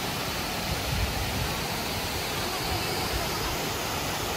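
Steady rush of a creek spilling over low rock ledges below a waterfall.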